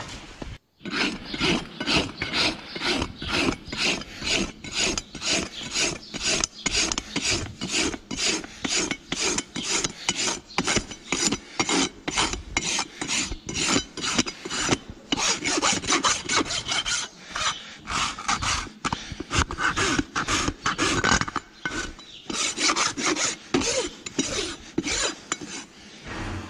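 Farrier's rasp filing a horse's overgrown hoof wall in quick, regular back-and-forth strokes, trimming down a hoof grown large with chronic laminitis.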